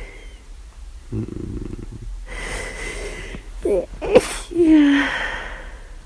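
A person sneezing once, about four seconds in, after a few catching breaths in, with a voiced breath out falling in pitch after it. The sneezing comes from flu and a constantly itching nose.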